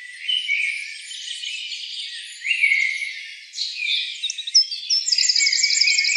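Forest birds chirping and whistling over a steady insect-like hiss, with a fast, high repeated trill from about five seconds in. All of it sits high, with no low sound at all.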